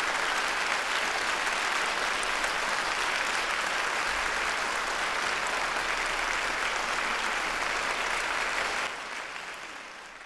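Audience applauding steadily after an orchestral performance; the applause drops away sharply near the end.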